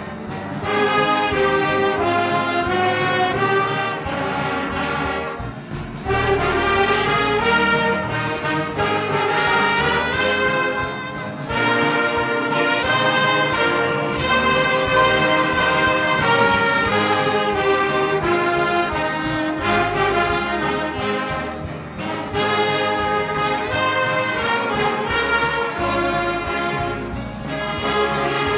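Brass ensemble with trumpets playing a tune in long phrases, with short breaks between phrases.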